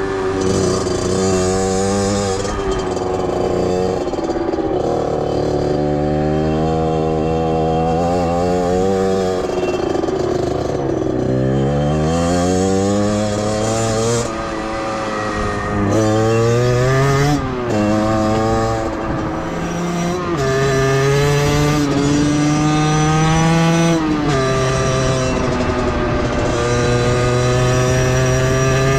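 Beta 50cc two-stroke motorcycle engine running hard, its pitch climbing and falling repeatedly: it rises through the revs, drops back sharply several times, then holds steady for stretches.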